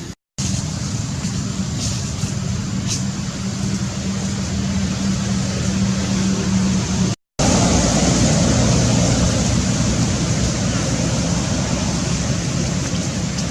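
Steady low motor-like hum with hiss over it, dropping out completely twice for a moment.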